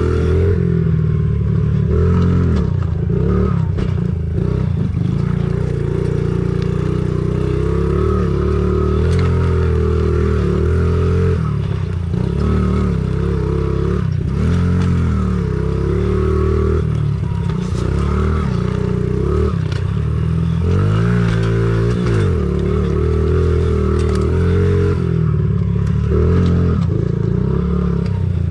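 Honda CRF50 pit bike's small single-cylinder four-stroke engine being ridden hard, its pitch rising and falling every second or two as the throttle is opened and shut, with some rattling of the bike over the rough track.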